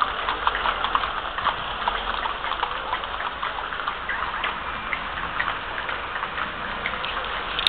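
Horses' hooves clopping, an irregular patter of many clicks over a steady background hiss.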